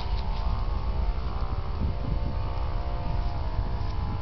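A steady engine drone, an even hum of several tones, over a low rumble.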